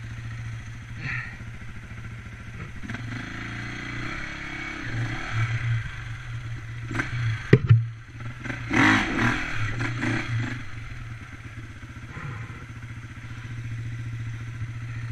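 Enduro dirt bike engine running at low revs as it labours through a muddy stream crossing, with short surges of throttle. From about seven to ten and a half seconds in there is a loud stretch of knocks and scraping clatter over the engine, then the engine settles back to a steady low note.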